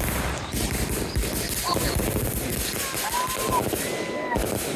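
Fireworks going off in a rapid, continuous string of bangs and crackles, like a firecracker string.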